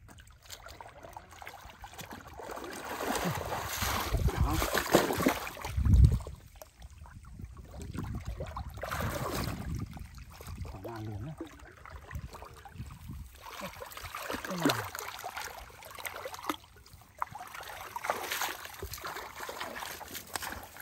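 Hands sloshing and squelching through shallow muddy water and mud as a fisherman gropes for fish, in uneven surges of splashing, with one low thump about six seconds in.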